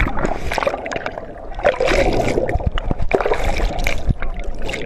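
Seawater gurgling and churning around a phone microphone held underwater, with bubbles rushing past and many small clicks and knocks.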